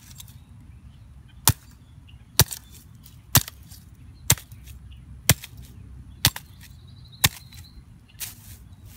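Eight sharp knocks, evenly spaced about once a second, the last one softer.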